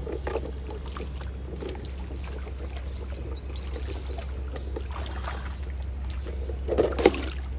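Plastic toy car dragged on a string through shallow muddy water and wet mud, sloshing and squelching with scattered small knocks, and a sharp louder knock near the end. A quick run of high chirps about two seconds in.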